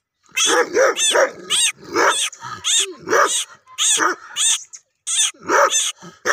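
Kohati Gultair dog barking in a rapid series, about two to three barks a second, with a brief pause about five seconds in.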